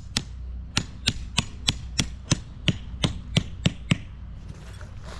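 Hammer blows, about three a second in an even rhythm, stopping about four seconds in.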